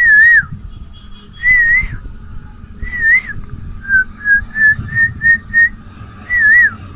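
A man whistling an imitation of an Asian koel's call. Several wavy notes about half a second long are broken up by a quick run of six short notes that climb slightly in pitch in the middle.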